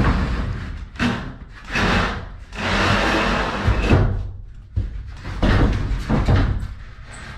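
Large hinged plywood lid of a bed-base storage box being handled and set onto its plywood frame: several wooden knocks and thumps with scraping of wood on wood, the longest scrape about three seconds in.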